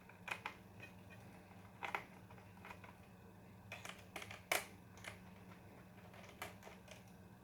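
Scattered light clicks and taps of a screwdriver and small screws on a laptop's plastic underside as the cooling fan's screws are undone, with the sharpest click about four and a half seconds in.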